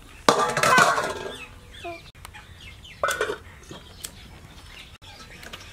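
Chickens clucking: one loud, drawn-out call lasting about a second near the start, and a second shorter call about three seconds in.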